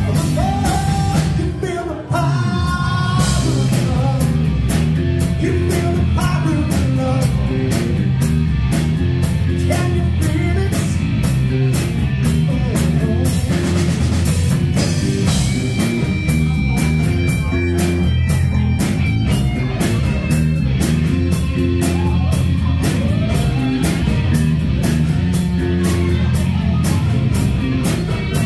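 Live rock band playing over a PA: electric guitars and a drum kit keeping a steady beat, with a man singing into the microphone.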